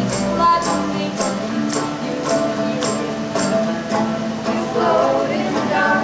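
Live acoustic folk music: a melodica holding sustained notes over acoustic guitar, with a hand-percussion beat about twice a second and women's voices singing in the second half.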